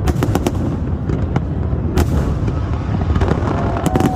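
Fireworks bursting over a constant low rumble, with sharp cracks: several in quick succession at the start, one about two seconds in, and two close together near the end.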